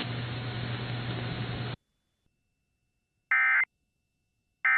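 Steady radio static with a low hum cuts off abruptly a little under two seconds in. After about a second and a half of silence comes a short burst of EAS digital data tones, and a second burst starts right at the end: the SAME end-of-message bursts that close an Emergency Alert System broadcast.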